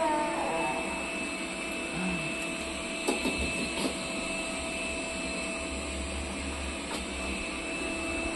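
Steady whirring hum of a household appliance running, with a few faint clicks partway through.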